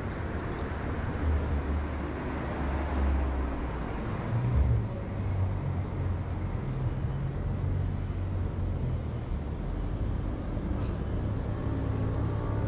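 Street traffic: motor vehicles running past with a low engine rumble, and a rush of tyre noise a few seconds in.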